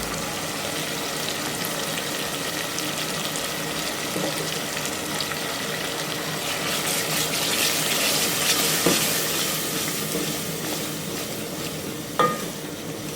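Curry sauce sizzling in a pan as it is stirred, the hiss swelling about seven seconds in, with a couple of light knocks near the end.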